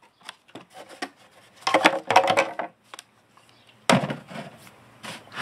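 Hard plastic chainsaw carrying case being handled: clicks and knocks of plastic, with a burst of clattering about two seconds in and another near four seconds.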